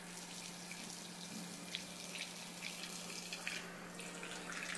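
Small DC water pump on a hobby-kit robot running with a steady low hum, switched on by a touch sensor, with water trickling and dripping.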